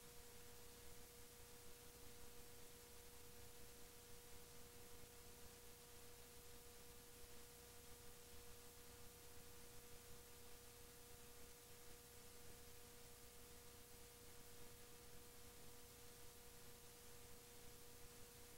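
Near silence: a faint, steady electrical tone with weaker overtones over low hiss, from a VCR playing a blank stretch of videotape.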